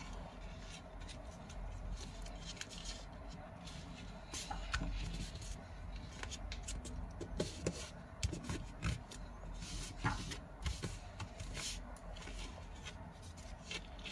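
A sheet of 15 cm origami paper being folded and creased by hand: rustling and crinkling, with sharp crackles as fingers press the folds flat. The crackles come thicker from about four seconds in.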